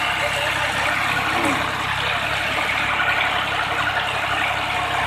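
Tractor diesel engine running steadily at a constant speed.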